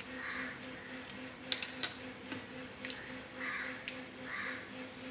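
A crow cawing several times, about a second apart. Partway through there are a few sharp clicks or knocks.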